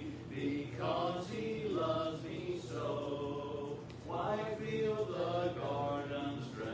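Church congregation singing a hymn a cappella, unaccompanied voices led by a man, in slow sustained phrases.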